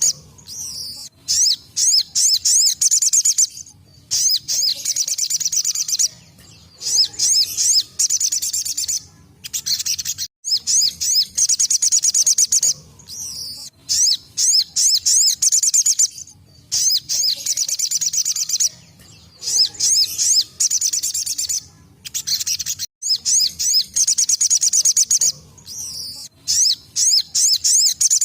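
Sogok ontong (little spiderhunter) singing its 'tembakan' song: high-pitched phrases of very fast repeated notes, each lasting a second or two, broken by short pauses and repeated over and over.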